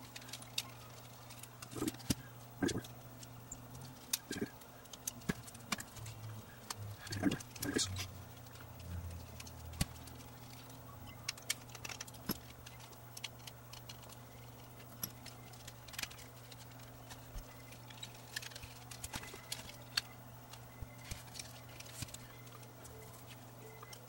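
Scattered small clicks and light knocks of a camcorder's plastic housing and chassis parts being handled and prised apart by hand, over a steady low hum.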